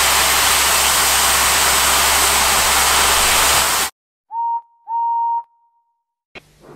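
Steam locomotive sound effect: a loud, steady hiss of escaping steam that cuts off abruptly about four seconds in. It is followed by two toots of a train whistle on one steady pitch, the first short and the second longer.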